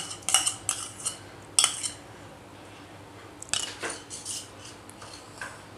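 A metal spoon scraping and tapping against a small bowl as yogurt is scraped out into a glass mixing bowl, in short clinks and scrapes. A few more clinks follow about halfway through.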